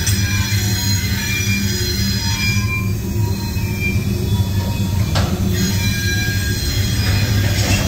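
Loaded open-top freight hopper cars rolling past at low speed: a steady low rumble of wheels on rail, with several thin, high-pitched tones of wheel squeal over it. Two short harsher noises come about five seconds in and near the end.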